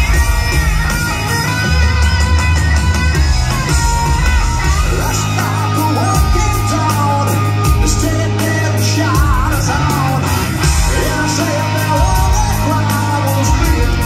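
Live rock band in full performance: electric guitars, bass and drums, with a male lead singer singing loudly over them.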